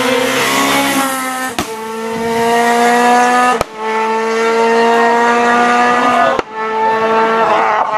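Renault Clio R3 rally car's naturally aspirated four-cylinder engine at full throttle, accelerating away, its note rising gently and broken by quick cuts about 1.6, 3.6 and 6.4 seconds in as it shifts up through the gears.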